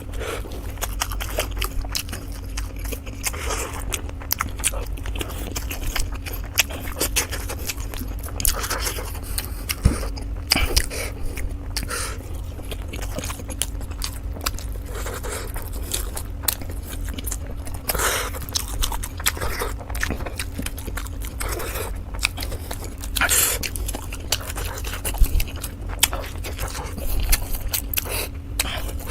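A person chewing and eating momo dumplings, with scattered short clicks and scrapes, over a steady low hum.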